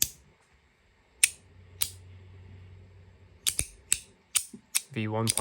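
Magnetic haptic fidget slider snapping back and forth: about ten sharp metal clicks at an irregular pace, closer together in the second half.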